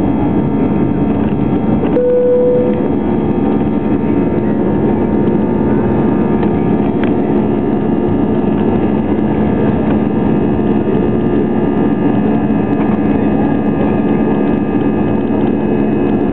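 Airbus A320 cabin noise during the climb after takeoff: a steady jet-engine roar heard from inside the cabin, with several constant humming tones. A short, clear tone sounds about two seconds in.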